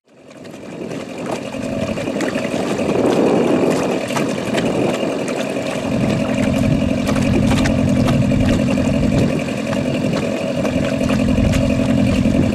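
Small boat outboard motor running steadily at low speed, fading in over the first couple of seconds.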